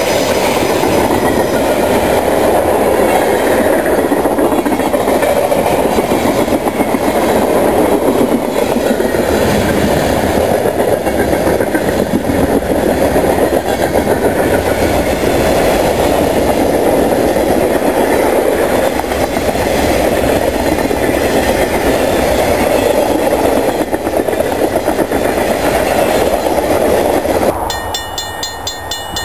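Freight cars rolling past at speed: a steady, loud rumble and rattle of steel wheels on the rails. Near the end it cuts off abruptly to a quieter background.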